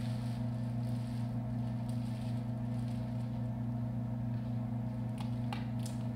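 A steady low electrical hum, with a few brief crinkly rustles about five seconds in.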